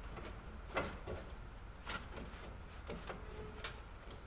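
A few light metallic knocks and clicks, about one a second, as a sheet-metal strut tower patch panel is handled and pushed into place on the car body.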